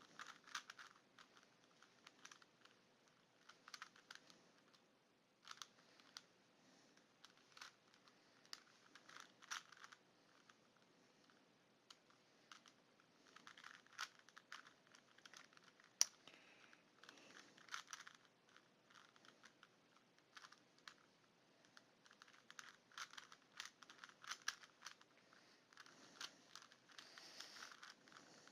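Rubik's Cube layers being turned by hand: faint bursts of quick plastic clicks and clatter, with short pauses between runs of turns and one sharper click a little past the middle.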